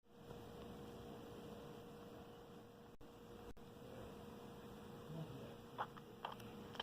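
A faint, steady electrical hum with background hiss, with three soft clicks near the end.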